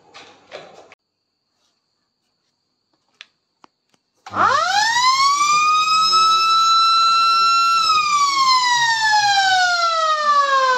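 Morning wake-up siren switched on at a wall switch: after two faint clicks, the siren winds up quickly to a steady high wail, holds for about three seconds, then starts winding slowly down in pitch.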